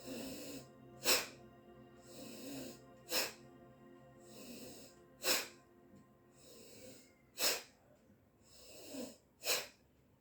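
A woman doing bhastrika (bellows breath) pranayama: five forceful breaths out through the nose, about every two seconds, each following a softer breath drawn in.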